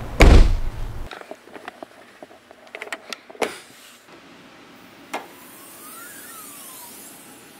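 Trunk lid of a 2017 Chevrolet Camaro slammed shut, one heavy thump just after the start. It is followed by scattered clicks and knocks, and a sharper click about five seconds in as the hood release is pulled.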